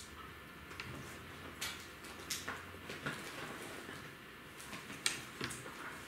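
Faint handling noise at a fly-tying vise: a few short, scattered clicks and taps as a resin applicator is worked around the fly's head, the sharpest one a little after five seconds in.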